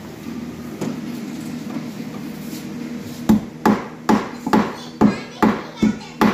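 Hammer driving a nail into wood: about eight sharp, evenly spaced strikes, roughly two a second, starting about three seconds in.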